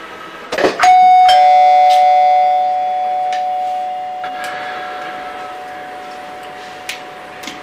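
Doorbell chime: two notes, a higher one then a lower one (ding-dong), ringing on and slowly fading for several seconds, just after a short knock.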